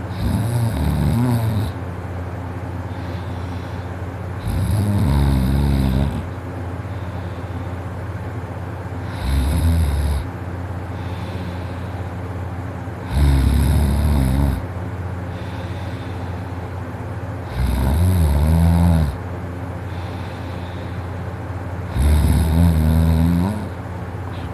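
A person snoring heavily in deep sleep, the throat fully relaxed: six loud snores about every four seconds, each lasting a second or so, over a steady low hum.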